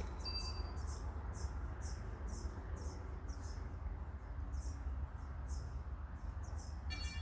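Sparse electronic tones from a plant-music (biosonification) device: a short synth note just after the start and a chord of several steady tones coming in near the end, over a short high chirp repeating about twice a second.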